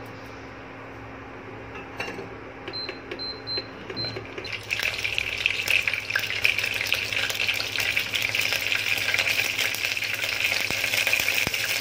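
Mustard seeds and urad dal spluttering in hot oil in a steel pot: a dense crackle of small pops that starts about four and a half seconds in and keeps going. Before it, a few short high beeps from the induction cooktop's control panel.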